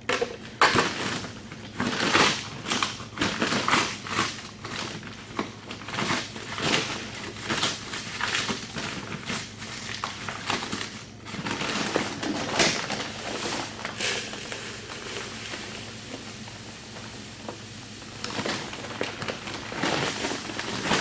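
Sacks of powdered mineral rustling and crinkling as it is scooped out with a small plastic bucket, in irregular bursts of grainy scraping. The sound eases off for a few seconds, then a paper sack is handled and rustles again near the end.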